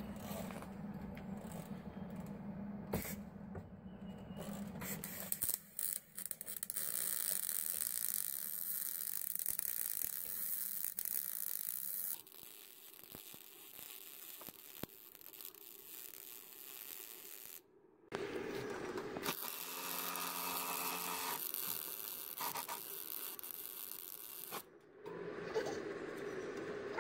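Millermatic 140 Auto-Set MIG welder arc crackling and hissing as an iron bar is welded to a wrought-iron railing base. It comes in several stretches, each starting and stopping suddenly.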